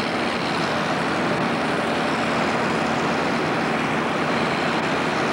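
Super stock pulling tractor's turbocharged diesel engine running loud and steady at the starting line.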